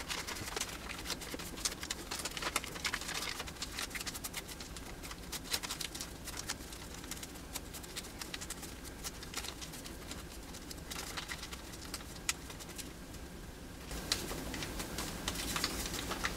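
A sheet of paper being folded and creased by hand into an origami crane: many small, irregular crinkles and crisp clicks of the paper.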